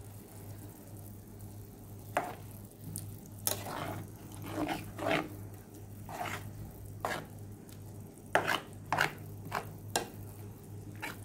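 A plastic spatula stirring thick sambal in a non-stick frying pan, with irregular short scrapes and taps against the pan, about a dozen in all. A steady low hum runs underneath.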